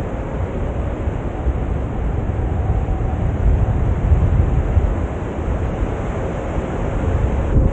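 Airflow buffeting the microphone of a camera carried by a paraglider in flight: steady low wind noise with no break.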